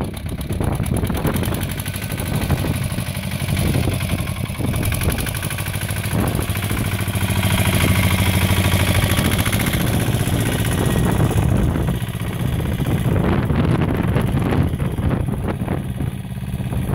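Pasquali compact tractor's single-cylinder Lombardini LDA 100 diesel engine running steadily as the tractor drives past. It grows loudest as it passes close, about halfway through, then fades as it pulls away.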